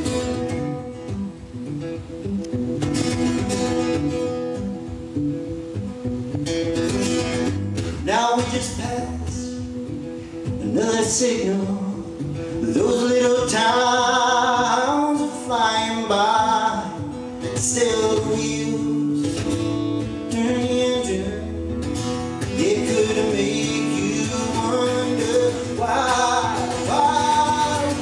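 A man singing a folk song while playing an acoustic guitar. The guitar plays alone at first, and the voice comes in about eight seconds in.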